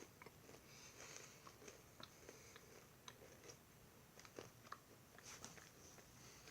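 Faint chewing of a crunchy almond butter granola cup: irregular small crisp crunches, a few louder ones a little past the middle.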